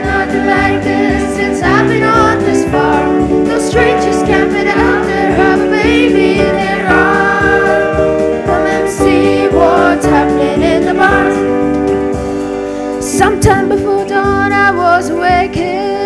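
Boys' choir singing with acoustic guitar and keyboard accompaniment, with a boy soloist singing into a microphone over the held chords.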